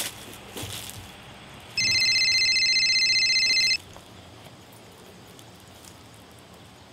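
Cell phone ringing: a burst of electronic trilling ringtone, about two seconds long, starting about two seconds in.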